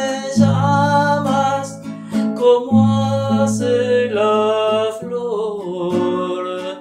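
A man singing to his own strummed acoustic guitar, a new chord struck roughly every two seconds.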